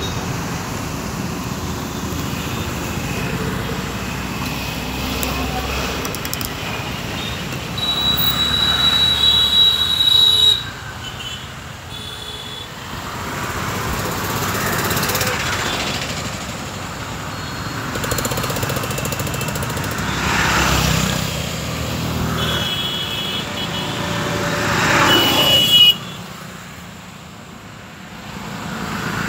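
Road traffic of motorcycles, scooters and cars passing close by, their engines swelling and fading as each goes past. Twice, partway through, high steady tones sound over the traffic for a few seconds, each ending in a loud peak that cuts off suddenly.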